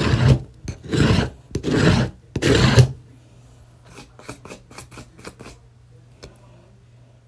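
Shirt fabric rubbed hard across a sticky Cricut strong grip cutting mat to wipe off vinyl scraps: four loud wiping strokes in the first three seconds, then a few faint ticks.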